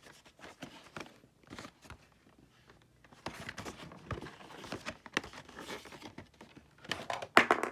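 A cardboard Pokémon card box being handled and turned over: scattered rustles and light taps, with a louder knock near the end.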